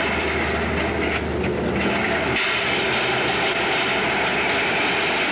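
Large corrugated-metal sliding hangar doors rumbling along their runners as they are pushed open by hand, a steady rolling rumble that shifts in tone about halfway through.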